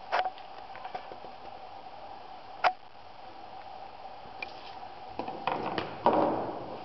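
Clicks and rustling from handling a plastic eyeshadow palette and a makeup brush: one sharp click just after the start, another about two and a half seconds in, and rustling near the end, over a steady background tone.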